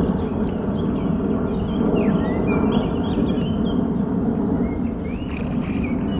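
Jet airliner passing overhead: a steady low drone, with small birds chirping over it. A brief splash about five seconds in as the hooked catfish breaks the surface.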